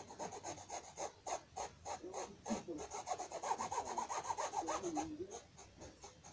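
Paintbrush scrubbing blue fabric paint onto cloth in quick, repeated strokes, a faint dry rubbing rasp of bristles on fabric.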